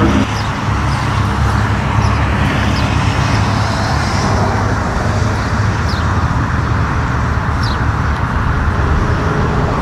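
Steady, loud low rumble of a car's engine and exhaust moving at low speed, with road noise.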